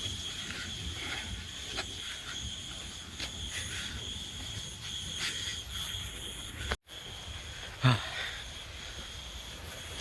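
Insects chirping in a steady high-pitched drone, with short pulses repeating through it over a low hiss. The sound cuts out for a moment about seven seconds in, and a short loud noise follows about a second later.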